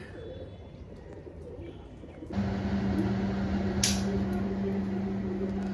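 Faint background, then a steady electrical hum with an even hiss, as of a running fan or appliance motor, starts abruptly about two seconds in. There is a single sharp clink about four seconds in.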